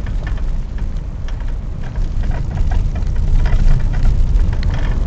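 Car driving along a road, heard from inside the cab: steady low engine and road rumble, with scattered light crackles and ticks.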